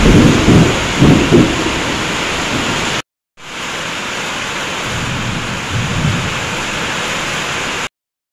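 Heavy rain falling steadily on gravel and plants, an even hiss with a few low rumbles in the first second and a half. The sound cuts off briefly about three seconds in, resumes, and stops shortly before the end.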